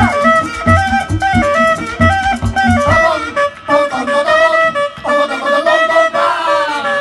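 Live Colombian folk music in puya rhythm: a folk flute plays a repeating, stepped melody over hand-drum strokes. The drums drop out about three seconds in and the melody carries on.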